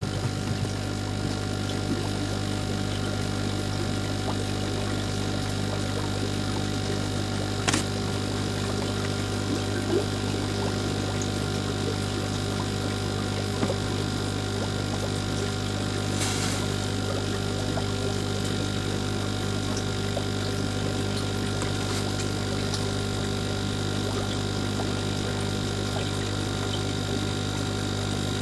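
Aquarium pump humming steadily, a constant low electrical drone with a few faint clicks over it.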